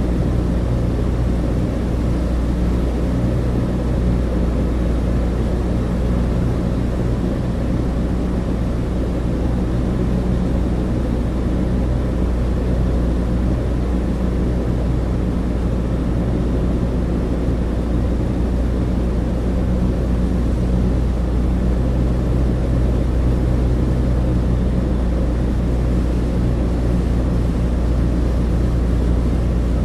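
Douglas DC-3's twin radial piston engines heard from inside the cabin: a steady, unchanging low drone with a rushing hiss over it.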